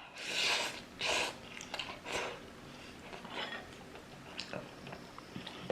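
A person eating very spicy instant noodles: three short breathy bursts, heavy breaths or slurps, in the first two seconds or so, then quieter chewing with scattered small clicks.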